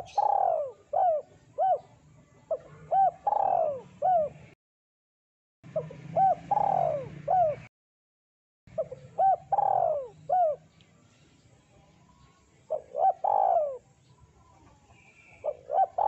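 Spotted dove (tekukur) cooing: repeated phrases of short coos, each phrase ending in a longer, falling coo. The sound cuts out completely twice, briefly.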